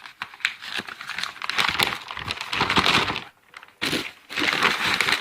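Pages of a paper owner's manual being turned and handled, with crinkling paper rustles that stop briefly a little past halfway.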